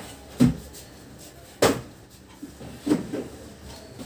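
Several knocks and thumps about a second apart, the sharpest about one and a half seconds in, as a small hard-shell suitcase is picked up and carried.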